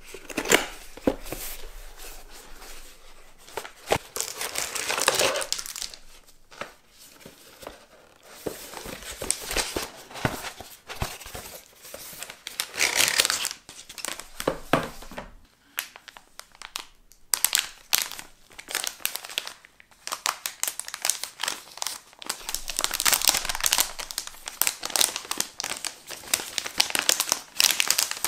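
Clear plastic packaging bags crinkling and rustling in irregular bursts as a boxed sound card and its plastic-wrapped cable are unpacked by hand, with small clicks and taps in between.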